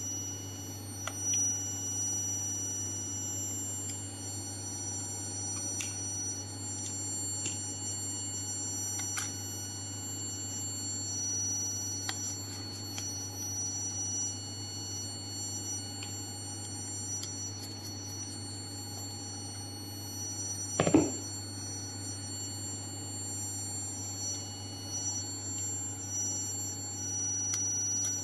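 A vibratory stress relief exciter runs steadily on a welded workpiece, giving a constant low hum with faint high-pitched whines and a few light clicks. A single thump comes about 21 seconds in.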